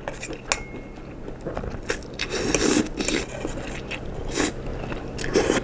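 Close-miked eating: a person chewing a mouthful of soft instant noodles in tom yum soup, with a few sharp clicks and short wet mouth noises.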